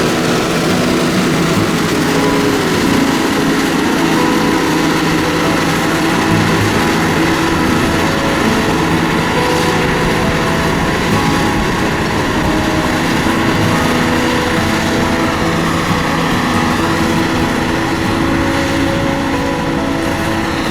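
LiuGong motor grader's diesel engine running steadily under load, with a dense, constant mechanical drone.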